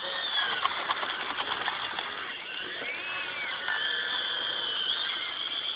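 Radio-controlled model excavator's motors whining while it works, the pitch gliding up and down. Short clicks and scraping of gravel as the bucket digs, most of them in the first couple of seconds.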